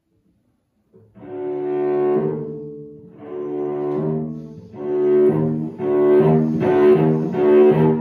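Solo cello bowed, playing a twelve-tone line. After about a second of silence it plays a run of sustained notes in several swelling phrases, louder toward the end.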